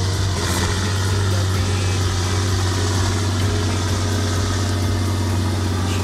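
John Deere 7830 tractor's six-cylinder diesel engine running steadily at working revs, under load from the round baler it is pulling through hay windrows. A steady, even drone with a strong low hum.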